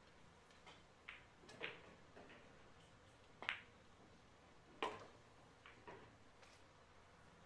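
Pool shot: the cue tip strikes the cue ball, followed by a string of sharp clicks as balls hit each other, knock against the cushions and drop into a pocket. The clicks are spread over about six seconds, the loudest in the middle.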